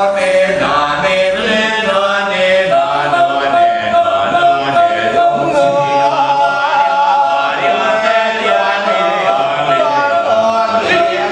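Kecak chant: a large chorus of men's voices chanting together. The singing is choppy at first, then settles into held notes from about three seconds in.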